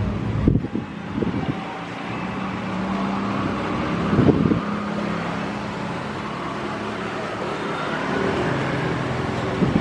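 CC 201 diesel-electric locomotive's engine running steadily as it hauls a passenger train slowly along the station track. Two low thumps are heard, about half a second in and about four seconds in.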